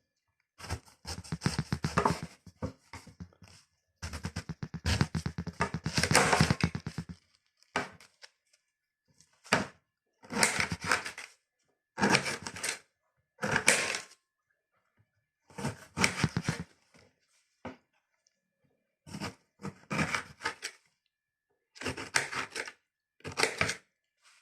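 Knife cutting through a pineapple: two stretches of quick, rapid strokes, then a run of separate cuts about every one and a half to two seconds.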